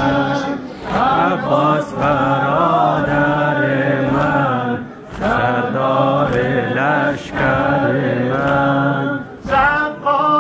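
A crowd of men chanting a nauha (Shia lament) together, in sung phrases of a few seconds with short breaks between them.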